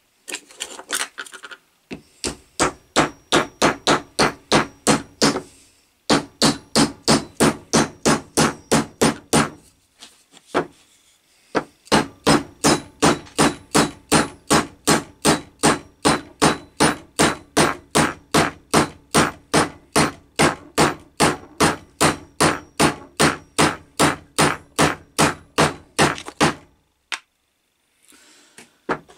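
Small hammer striking the top of a hickory axe handle in rapid, even blows, about three a second, in several runs with short pauses, driving the wedge into the eye to lock the axe head on.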